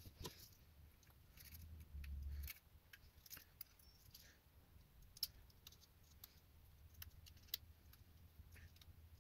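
Faint, scattered small metallic clicks and ticks as the pocket clip is taken off and moved to the other side of a Spyderco Para Military 2 folding knife, with a brief low rumble about two seconds in.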